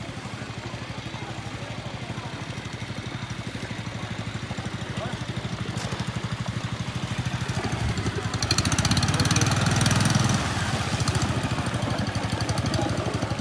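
Canal boat's engine running steadily with an even, fast chugging pulse. It grows louder for about two seconds past the middle, then drops back.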